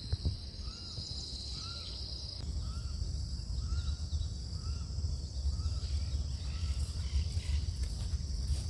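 A bird repeating a short, arched call note about every two-thirds of a second, over a steady high insect buzz that drops in level about two and a half seconds in, with a low outdoor rumble underneath.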